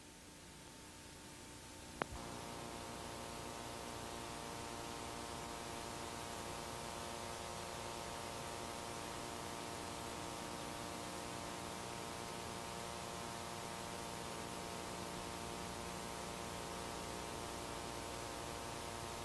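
Steady electrical hum over hiss, starting just after a sharp click about two seconds in.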